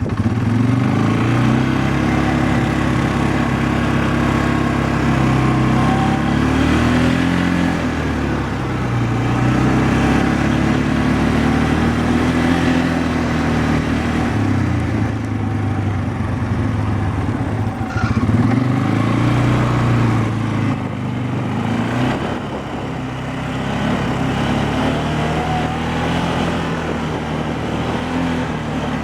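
Polaris Sportsman 500 H.O. ATV's single-cylinder four-stroke engine running, revved up and let back down to idle several times. It has a knock at idle, which the owner takes for normal CVT clutch noise, and a harder, deeper knock under load that he suspects is piston or rod slap.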